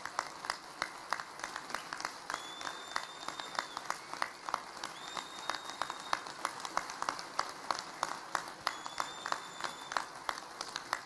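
Audience applauding, a dense steady patter of many hands clapping. A faint high steady tone sounds briefly three times over it.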